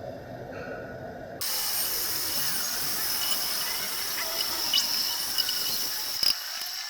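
Metal lathe at work on a steel shaft. A quieter steady running sound gives way, about a second and a half in, to a loud steady high-pitched hiss of cutting, with a few sharp ticks near the end.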